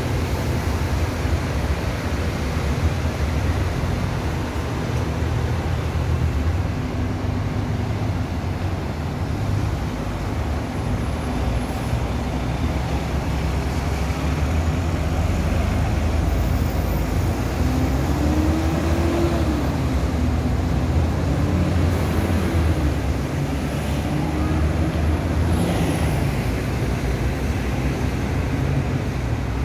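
City road traffic: a steady rumble of cars and double-decker buses, with an engine's pitch rising and then falling a little past halfway through.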